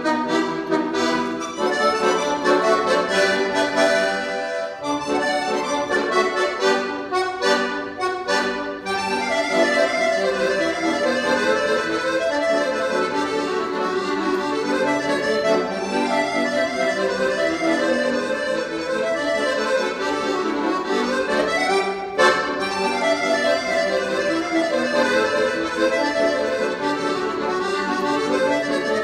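Piano accordion played solo: a busy passage of melody over chords, with a string of short, sharp chords about six to nine seconds in and quick rising runs of notes later on.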